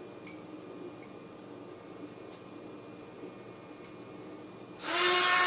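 A few faint light ticks as a hand tool works the 3D-printed plastic gear, then near the end a small handheld rotary tool switches on and runs with a steady whine.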